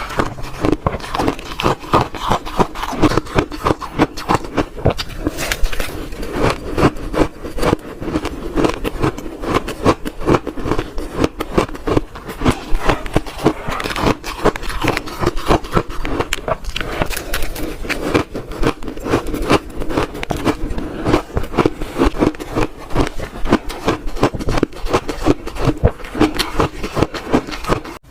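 Close-miked crunching of frozen shaved red ice being bitten and chewed by the spoonful: a dense run of crunches and crackles, several a second, that goes on without a break.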